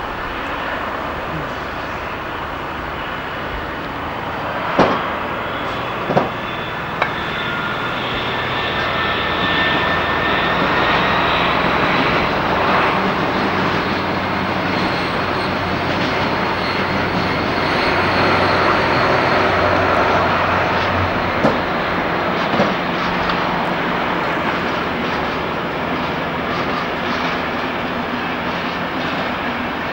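A diesel train running through the station, its engine giving a steady drone with a faint high whine above it. A few sharp knocks are heard, from wheels passing over rail joints.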